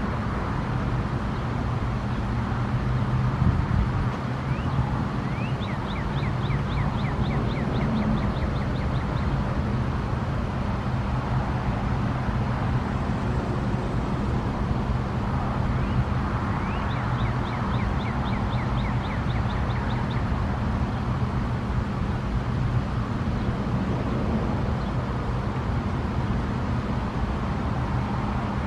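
Steady low hum and road-traffic noise. A bird calls twice over it, each time a rising note followed by a quick run of short, high repeated notes.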